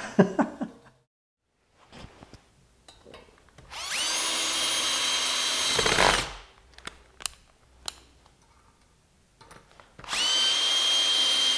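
Cordless drill running in two bursts of about two and a half seconds each, at a steady high pitch, working at the end of a copper-tube brace on a brick wall. Small clicks and knocks come between the two runs.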